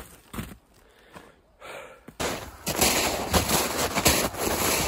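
Heavy, out-of-breath breathing. About two seconds in comes a loud, continuous crunching and scraping of snow close to the microphone, broken by irregular sharp cracks.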